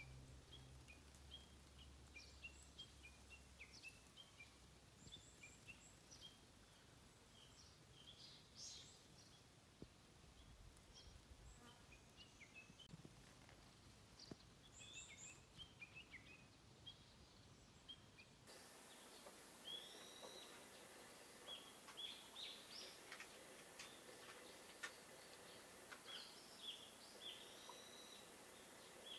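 Faint birdsong: small birds chirping in short, scattered calls over a quiet background hiss that grows louder about two-thirds of the way in.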